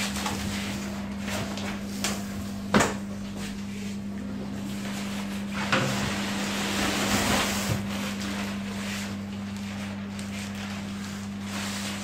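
Cardboard carton and packaging being handled as a washing machine is unboxed: flaps opened, a sharp knock about three seconds in, then plastic sheeting rustling as the polystyrene top cover is lifted out, over a steady low hum.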